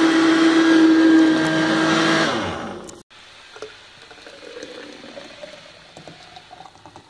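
Countertop blender running at a steady high speed, then switched off about two seconds in, its motor winding down in pitch. After that only faint kitchen handling sounds.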